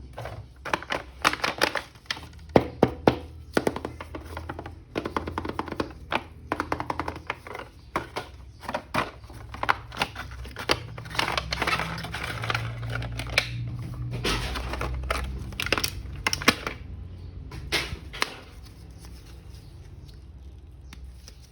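Action figure's toy packaging being handled and opened by hand: quick runs of clicks, rattles and light knocks that thin out near the end.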